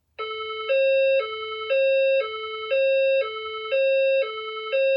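Fire alarm speaker strobe (System Sensor SPSR) sounding a two-note hi-lo alert tone, the notes switching every half second with the higher one louder. It is the signal tone of a voice alarm message, meaning an event has been reported in the building and is being verified.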